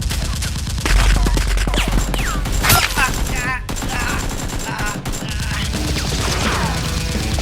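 Rapid volleys of gunfire, many shots in quick succession, with a few short falling whistle-like sounds among them.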